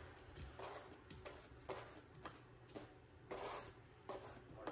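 Faint, soft scrapes every half second or so as chopped turkey is pushed by hand off a cutting board into a bowl of beaten eggs.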